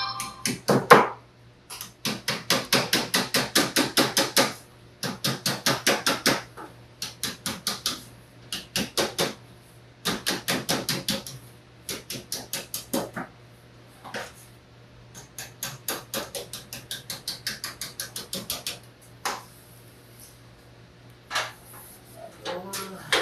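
Hammer tapping along the edge of a sheet-metal blank on a wooden table, folding the seam edge down: quick light strikes, about five or six a second, in runs of a few seconds with short pauses between.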